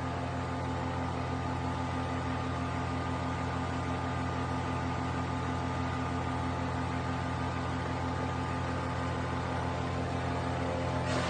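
Engine of a 150mm Forestwest wood chipper running steadily at constant speed while palm fronds are fed through it.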